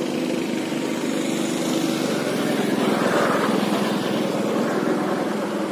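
Go-kart engines running in a race: a steady, buzzing engine drone that swells a little about three seconds in.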